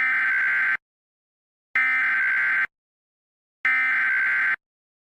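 Emergency Alert System SAME header: three identical bursts of digital data tones, each just under a second long, with about a second of silence between them. This encoded header marks the start of an emergency alert broadcast.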